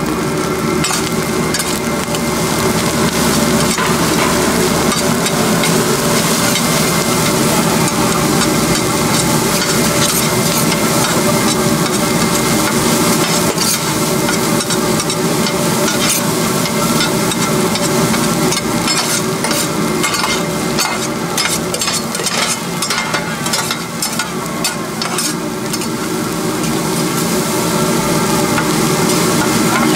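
Pork fried rice sizzling as it is stir-fried in a large wok, with a metal spatula scraping and clacking against the pan. There are runs of quick clacks near the middle.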